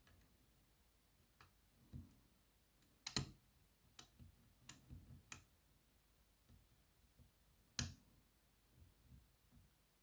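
Scattered light metallic clicks from a hook pick working the pins of a BKS 88 lock cylinder held under tension. The two sharpest clicks come about three seconds in and near eight seconds, with smaller ones between.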